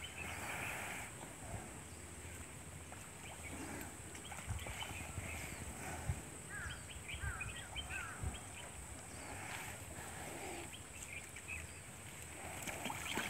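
Outdoor pond-side ambience: small birds calling in short quick chirps, a cluster of them about halfway through, over a steady high-pitched whine, with scattered low bumps.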